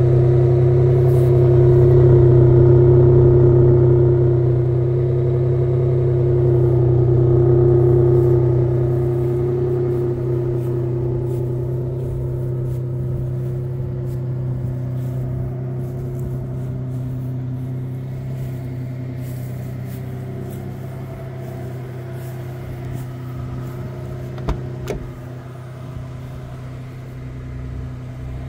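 A 1999 Toyota Tacoma's rebuilt 3.4-litre V6 idling steadily, heard at the exhaust tip. The sound grows gradually fainter, and a single sharp click comes about 24 seconds in.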